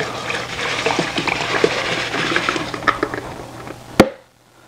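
Granulated sugar pouring from a plastic jug into a plastic fermenting bucket: a steady hiss of falling grains with small ticks, thinning out and stopping after about three and a half seconds. About four seconds in, one sharp knock of the emptied plastic jug against the bucket.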